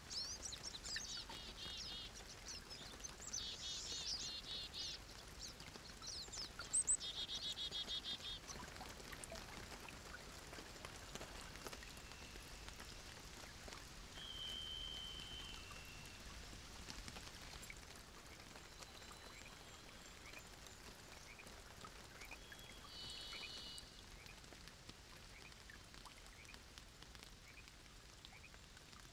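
Wild songbirds singing: several bursts of fast, rattling trills in the first eight seconds or so, then a few single whistled notes spaced apart, over a faint steady hiss. A brief sharp click about seven seconds in is the loudest moment.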